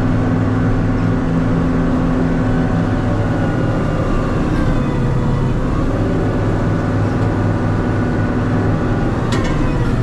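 Tractor engine running steadily, its pitch wavering a little with load while clearing snow, with one sharp knock near the end.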